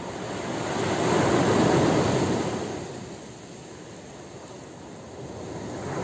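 Ocean surf: one wave swells and washes in, loudest about two seconds in, then drains away, and the next starts to build near the end.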